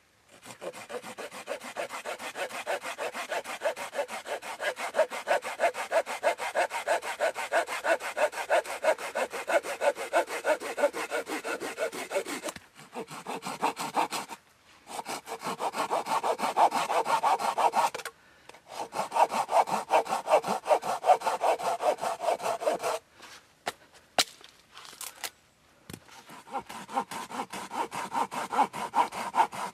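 Small hand saw cutting through a green branch in steady back-and-forth strokes. It stops for short breaks three times, with a few sharp knocks during the longest break.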